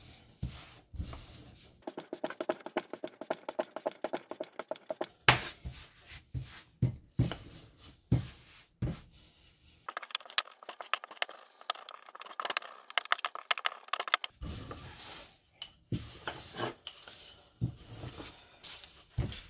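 Wooden rolling pin rolling out flatbread dough on a countertop: long stretches of rapid rattling and scraping as the pin rolls back and forth, with sharp knocks now and then.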